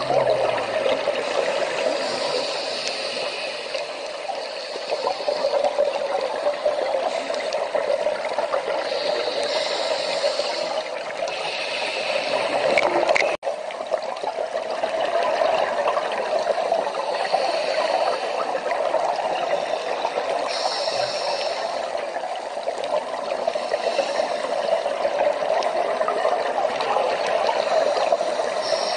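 Steady underwater rushing picked up by a diving camera, with short hissing patches every few seconds and a brief dropout about thirteen seconds in.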